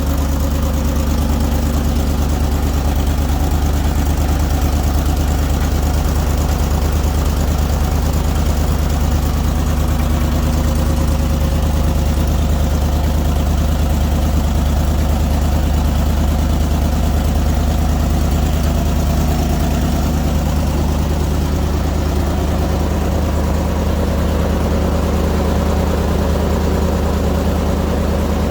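An engine idling steadily with an even, low drone.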